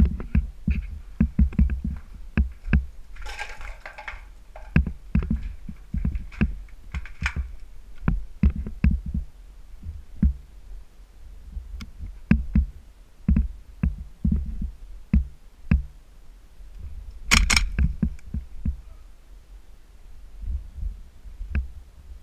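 Footfalls and body movement carried through a head-mounted action camera: irregular low thuds about two a second. About 17 seconds in, a quick cluster of sharp cracks.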